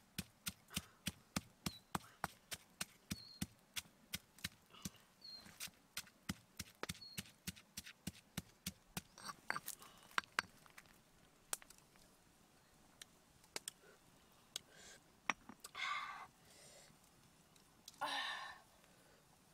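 Pestle pounding chilies in a stone mortar: sharp, even knocks about two to three a second for the first half, then stopping. Near the end come a few scattered knocks and short scraping sounds as the paste is scraped out of the mortar.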